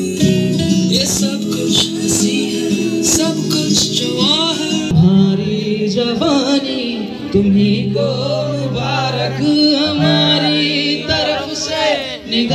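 A band playing with a man singing: sharp drum hits in the first few seconds, then the voice over long held low notes.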